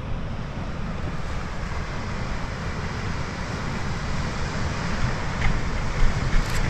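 Steady surf washing on the beach, with wind buffeting the microphone in a low, uneven rumble.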